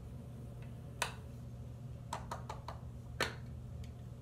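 Small clicks and ticks of a powder compact being handled and its lid opened, with a makeup brush worked against it. Two sharper clicks come about two seconds apart, with a few lighter ticks between, over a steady low hum.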